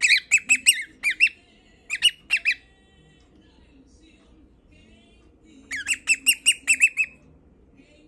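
A cockatiel singing: fast runs of short, piercing chirps come in bursts, one at the start, two short ones soon after, and a longer run of about seven notes near the end.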